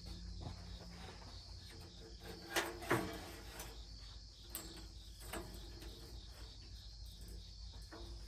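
Crickets chirping steadily in the background, with two sharp knocks close together about two and a half seconds in and a few fainter clicks after.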